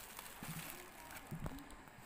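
Faint handling noises as a wrapped parcel is turned over and moved about, with a few soft knocks.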